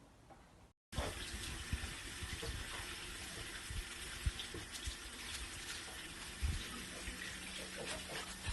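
Steady rush of running water, like a tap, with scattered knocks and bumps. It starts abruptly about a second in.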